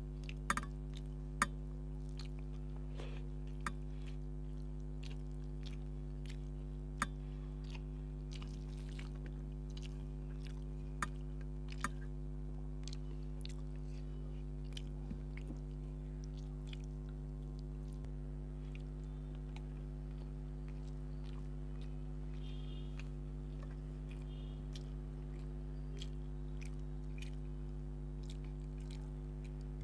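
Close-miked chewing and wet mouth sounds of someone eating rice and curry by hand, with scattered sharp smacks and clicks, the loudest in the first couple of seconds. A steady electrical hum runs underneath.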